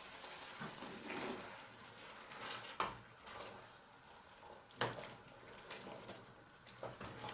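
A few light, sharp clinks of a utensil against a cooking pot, scattered over a faint hiss, as coconut milk is worked into a pot of beans.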